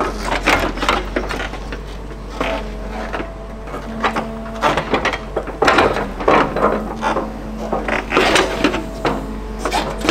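Liebherr 912 Litronic hydraulic excavator running steadily while its bucket digs into stony soil and drops a load of earth, with repeated clatters and scrapes of stones against the steel bucket.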